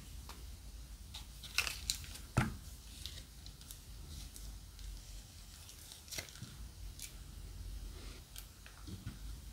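Small plastic zip-lock bag of gold glitter slime crinkling and crackling as it is handled and squeezed out into a bowl, in scattered sharp snaps, the loudest about two and a half seconds in.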